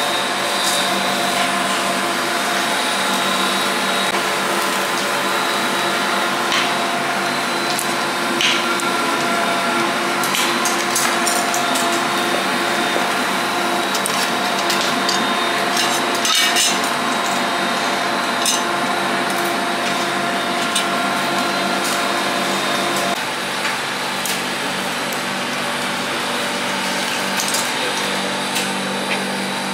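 Steady machine hum, with scattered metallic clinks and knocks of kebab skewers and dishes on a marble counter. Part of the hum drops away about three-quarters of the way through.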